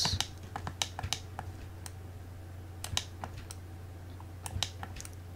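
Scattered clicks of a computer keyboard and mouse, several in the first second or so and then a few isolated ones, over a low steady hum.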